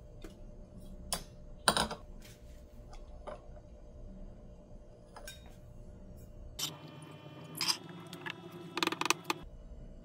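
A few scattered clinks and knocks of a glass coffee cup and a stainless steel milk jug being handled and set down around an espresso machine's drip tray. The loudest knock comes a little under two seconds in, and a quick cluster of clinks comes near the end.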